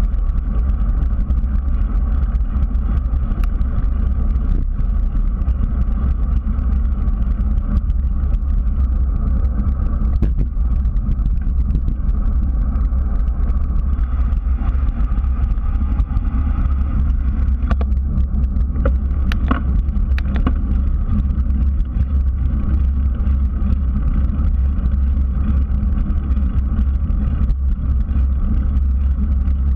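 Steady low rumble of wind buffeting and tyre noise on a bicycle-mounted GoPro as the bike rolls along a paved trail, with a few sharp clicks and knocks from the bike near the middle.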